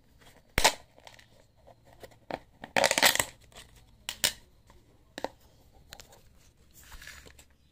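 Plastic packaging being handled: a plastic bag and a clear plastic tub crinkle and click, with a few sharp knocks and a louder stretch of crinkling about three seconds in.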